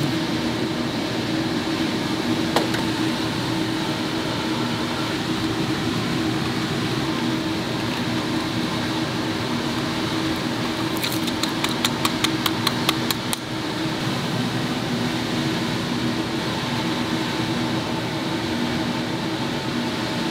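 Steady hum of a kitchen ventilation fan. There is a single click early in the sound, and a quick run of about a dozen clicks lasting a couple of seconds just past the middle.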